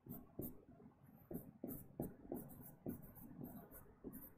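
Pen writing on an interactive display board: about ten quick taps and short scratching strokes as a word is handwritten.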